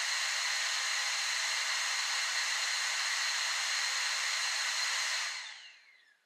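NITECORE izzCool 20 Pro portable fan running with a steady rush of air and a faint whine, then switched off about five seconds in and spinning down, its whine falling in pitch as the noise fades to nothing.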